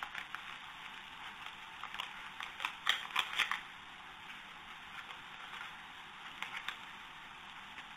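Steady hiss of a narrow-band, low-quality recording with scattered light clicks and crackles, clustered about three seconds in and again briefly near six and a half seconds.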